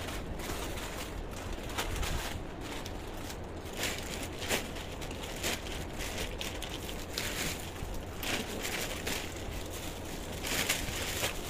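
Irregular rustling and crinkling of clothing being handled and folded, with a steady low hum underneath.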